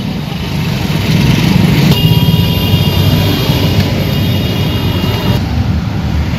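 Street traffic noise: a steady rumble of vehicles running, with a thin high whine that comes in about two seconds in and stops about five seconds in.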